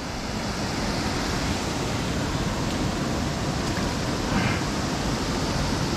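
Steady, even rushing noise of wind buffeting the microphone, with no distinct splash or other event standing out.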